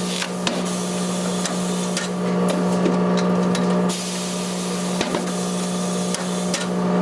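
Tyre-shop machinery running with a steady hum, under stretches of hissing and a few sharp knocks and clicks from the tyre-fitting work.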